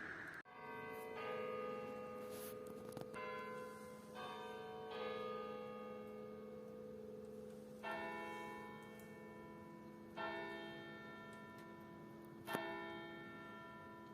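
Church bells ringing: several bells strike slowly and unevenly, every few seconds, each stroke ringing on with a long hum that carries under the next. The ringing starts abruptly about half a second in, after a short rush of noise.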